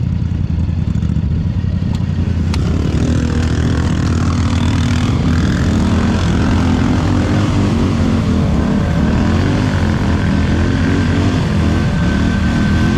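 Quad bike (ATV) engine running, its revs rising and falling repeatedly from about three seconds in.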